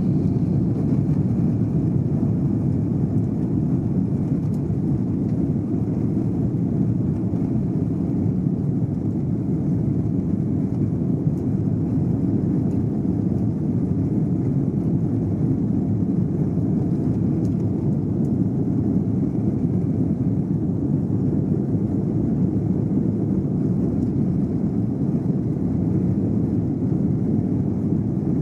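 Steady low rumble inside the cabin of an Airbus A330-200 airliner on the ground, engines running at low power with no rise in level.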